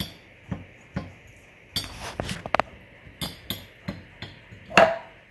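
A metal fork clinking and scraping against a ceramic plate while canned mackerel is picked apart and deboned: a string of light irregular taps, with the loudest, ringing clink near the end.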